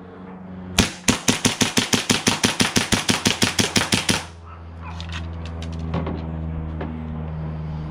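An M9-style gas blowback airsoft pistol fired in a fast string of around two dozen shots, about nine a second, for some three seconds. A few faint clicks of handling follow over a low steady hum.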